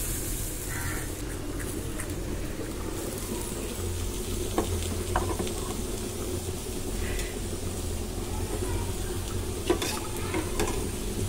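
Rasam sizzling gently in a small steel pot just after being poured onto hot mustard-seed tempering, while a spoon stirs it and clicks against the pot a few times. A steady low hum runs underneath.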